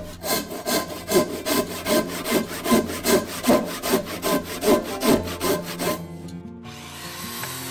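Japanese handsaw cutting a tenon into the end of a hinoki cypress joist: quick, even rasping strokes, about two or three a second, stopping about six seconds in.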